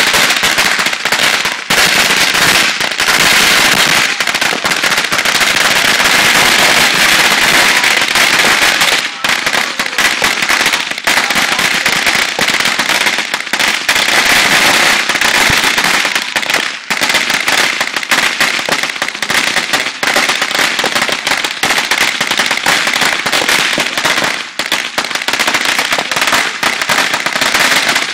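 Ground fireworks going off on a street: a loud, dense crackling of many small pops in rapid succession that hardly lets up, with a few brief dips.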